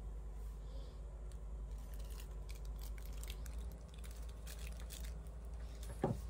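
Clear plastic packaging crinkling and crackling in the hands in quick short crackles, starting about two seconds in. A single short thump near the end.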